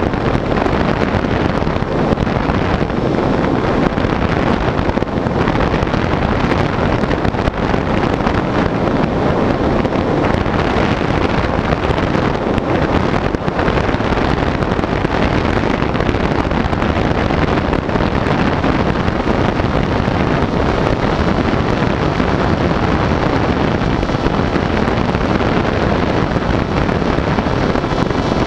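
Steady, loud wind rushing over the onboard camera's microphone as an EPP foam FPV plane flies, mixed with the running of its brushless electric motor and propeller.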